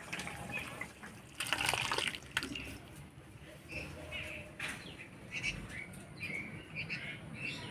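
Birds chirping over and over, short calls scattered through the whole stretch, with a short rushing noise about one and a half seconds in.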